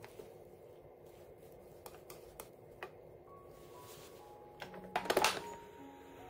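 Plastic rice paddle scraping and tapping in the nonstick inner pot of an electric pressure rice cooker as sticky rice is mixed, then a loud cluster of clicks about five seconds in as the cooker's lid is shut and latched.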